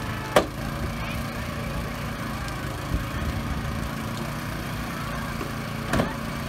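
Hydraulic rescue tool's power unit running steadily while the tool forces a car door, with sharp pops of the door metal giving way: the loudest about half a second in, smaller ones around three seconds and near the end.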